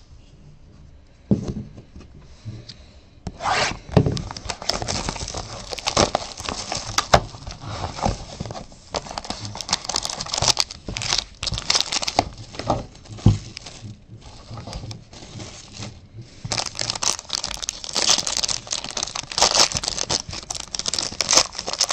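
Foil wrapper of a trading card pack crinkling and tearing as it is pulled from its cardboard box and ripped open, in stretches of dense crackling with a short lull about two-thirds of the way through.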